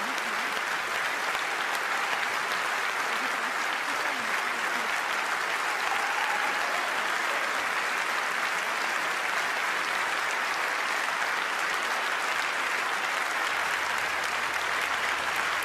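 A large assembly of several hundred people giving a standing ovation: dense, steady clapping.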